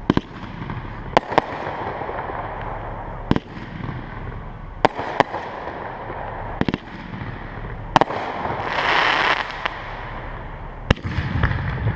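Aerial firework shells bursting overhead, about nine sharp bangs a second or two apart, with a brief fizzing hiss about nine seconds in.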